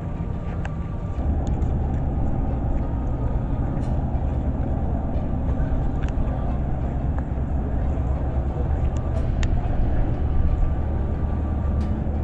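Steady low rumble of a passing vehicle, growing louder about a second in, with a faint held tone and a few light clicks over it.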